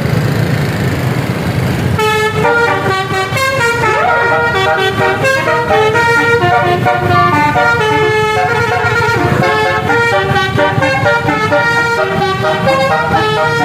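Bus basuri "telolet" multi-tone horn playing a fast melody of stepped notes, starting about two seconds in, over the low rumble of the bus's engine.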